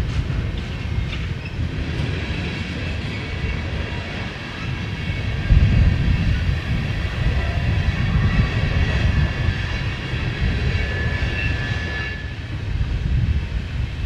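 Freight cars of a slow-moving coal train rolling through a curve, with faint, thin, steady high squealing from the wheels on the rails. Heavy wind buffets the microphone with low, gusty rumble, strongest from about halfway through. The squealing stops abruptly near the end.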